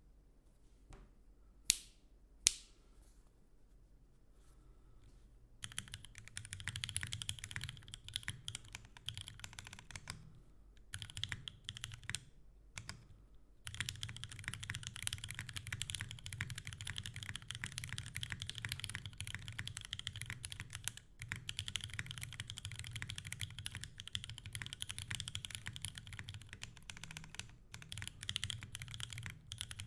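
Typing on a TGR Jane V2 CE custom mechanical keyboard with a top-mounted carbon fibre plate, lubed and filmed Gateron Phantom Brown tactile switches and GMK keycaps. Two sharp single clicks come about two seconds in, then steady fast typing starts about six seconds in, with a couple of short breaks before running on continuously. A low thump, mostly from the spacebar on the desk, and some echo from a mostly empty room are heard.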